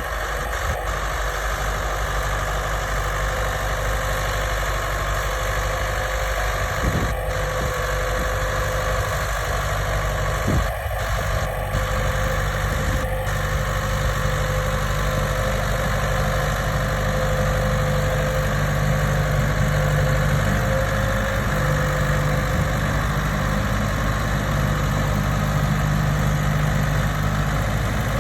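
Tractor engine running steadily as it pulls a plough, with a few faint knocks a third of the way through.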